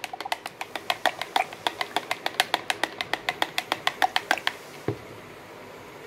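Metal spatula clicking against the wall of a plastic beaker as ultrasound gel is stirred by hand, about five quick taps a second. The stirring stops about four and a half seconds in, followed by one soft low thump.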